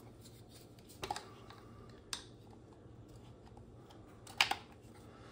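Hard plastic clicks and knocks as a plastic part of an Arrma Mojave 6S chassis is handled with a hex key and refitted: a few sharp clicks, the loudest about four seconds in.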